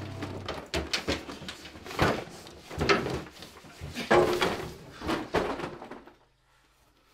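A cardboard box being pulled open and rummaged through: a run of irregular knocks, thumps and rustles that stops about six seconds in.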